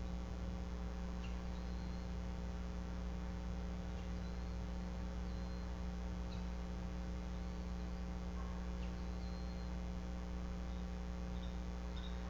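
Steady electrical mains hum from the nest camera's audio, unchanging throughout, with a few faint, short high chirps now and then.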